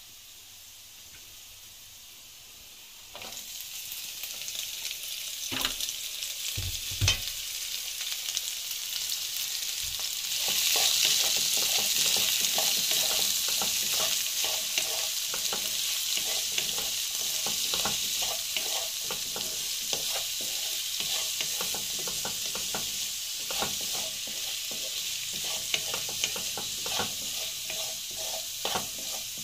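Diced potatoes and chopped cabbage sizzling in hot oil in a frying pan, with a spatula scraping and tapping the pan as they are stirred. The sizzle starts suddenly about three seconds in, as the cabbage goes into the pan, and grows louder about ten seconds in.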